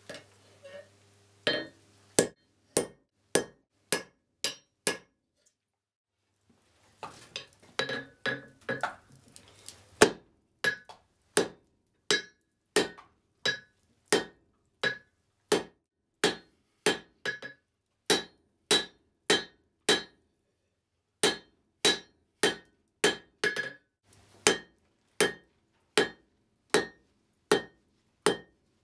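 A hand hammer strikes red-hot spring steel on an anvil in a steady rhythm of about three blows every two seconds, each blow with a bright metallic ring. After a few blows the hammering stops for about two seconds, then resumes with a few brief pauses.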